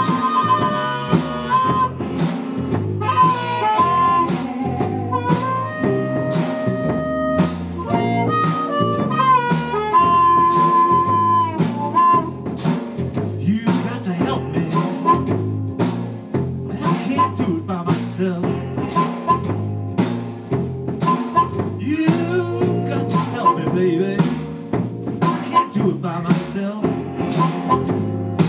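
Blues harmonica (blues harp) playing a slow blues instrumental intro, with long held and bent notes, over a steady drum beat and a walking bass line.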